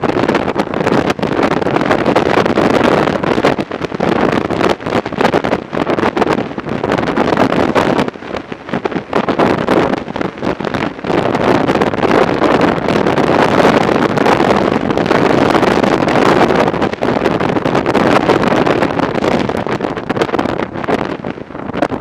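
Heavy wind rush buffeting the microphone of a motorcycle at riding speed, rising and falling in gusts, with brief lulls about a third of the way through and again around halfway.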